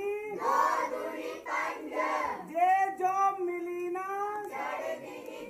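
A group of children singing together in a sing-song unison chant, with long held notes between shorter syllables.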